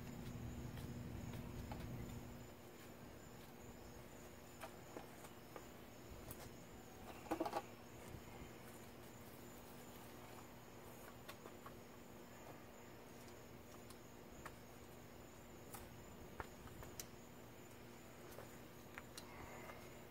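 Light clicks and taps of plastic string-trimmer parts being handled, with a short clatter about seven seconds in, over quiet outdoor background with a faint steady high insect buzz. A low hum dies away about two seconds in.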